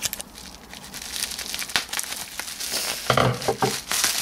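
Plastic bubble wrap crinkling and rustling as it is handled and pulled open by hand, the crinkling getting louder and busier about three seconds in.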